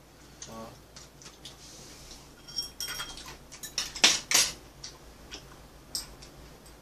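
Eating utensils clicking and clinking against bowls and dishes during a meal: a few irregular, scattered clicks, the loudest two close together about four seconds in.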